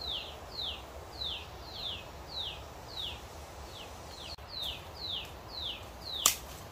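A bird calling: a short high note sliding downward, repeated about twice a second. A single sharp snap sounds near the end.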